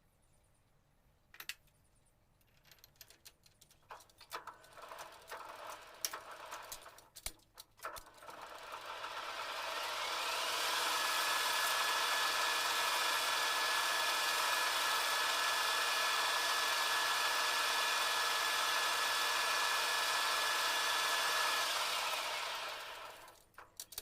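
Light clicks and knocks of metal parts being handled, then a manual lathe's motor and spindle spin up with a rising whine, run at a steady speed for about twelve seconds, and wind down near the end.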